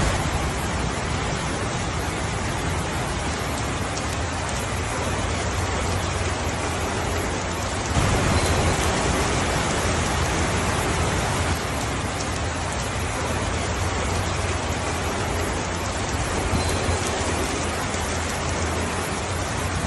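Steady rainfall, an even hiss of many drops, growing heavier for a few seconds about eight seconds in before easing back.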